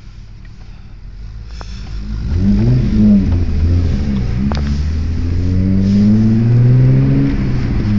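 Volkswagen Corrado's VR6 engine accelerating hard through the gears, heard from inside the cabin: quieter for about two seconds, then the revs climb repeatedly, dipping at each gear change, with one long pull near the end.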